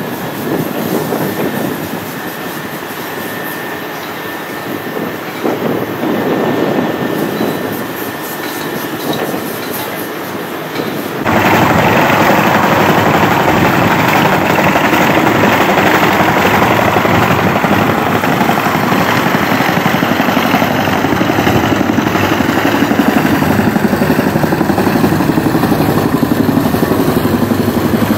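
Construction-site background noise, then, about 11 seconds in, a sudden switch to a loud petrol tamping rammer (jumping-jack compactor). It runs steadily with a rapid pounding as it compacts the soil in a trench.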